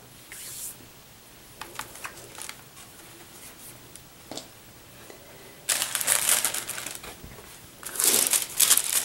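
Thin clear plastic record sleeve rustling and crinkling as a vinyl LP is handled and slid into it. First come a few light taps and clicks, then two longer stretches of rustling in the second half.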